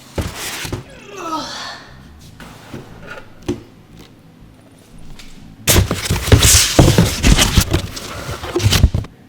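Packaging being handled and pulled open: scattered knocks and rustling, then a few seconds of loud, dense crackling and crinkling near the end.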